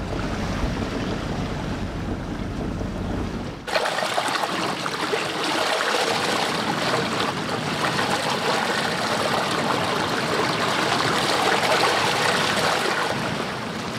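A 40-foot sailboat under way under sail, water rushing along the hull with wind. For the first few seconds it is a deep rumble, then it changes suddenly to a brighter, steady hiss of water and wind.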